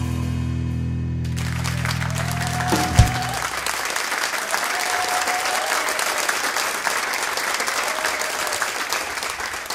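A live blues-rock band's final sustained chord rings out and dies away while an audience starts applauding about a second in. There is a sharp low thump about three seconds in, and the applause carries on, slowly fading.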